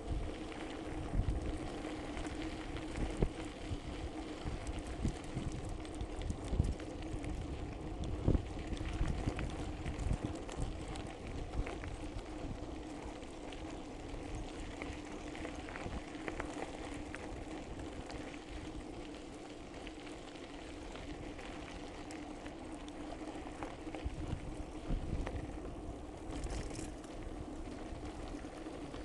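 Mountain bike coasting downhill on a dirt and gravel track, heard from an on-board camera: tyres crunching over the loose surface and the bike rattling over bumps with frequent short knocks, over a steady hum.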